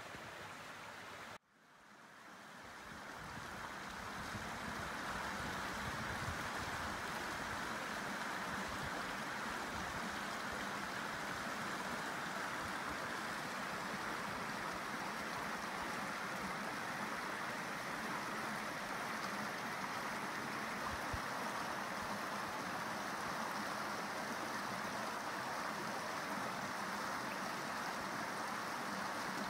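Small mountain stream running over rocks, a steady rushing of water. The sound cuts out suddenly about a second and a half in, then fades back up over a few seconds.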